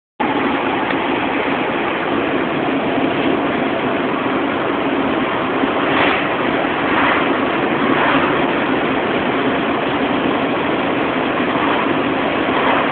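Steady running noise of a car on the road, engine and road noise with no distinct events.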